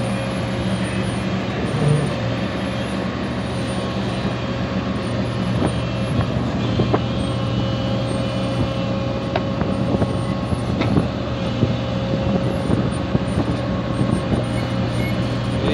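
Excavator's diesel engine running steadily under load, with scattered short knocks and clanks from the machine at work.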